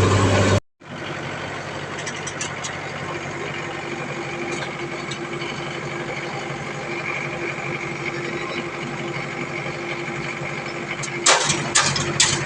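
Heavy construction machine's engine idling steadily, with a few sharp knocks near the end.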